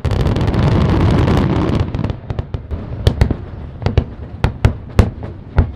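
Fireworks going off, probably the close of the show: a dense, rapid crackle for about the first two seconds, then about a dozen separate sharp bangs at uneven intervals.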